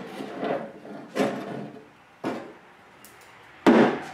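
A handheld power tool working the gas tank strap bolts under a 1970s Pontiac Firebird, going in four short bursts, the last and loudest near the end.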